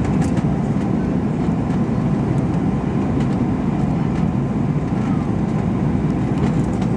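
Steady cabin noise inside an Airbus A321-231 airliner: an even rumble of the jet engines and airflow, with no change in level.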